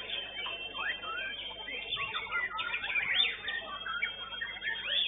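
Several young white-rumped shamas (murai batu) singing at once: a dense, overlapping run of quick whistled sweeps and chirps.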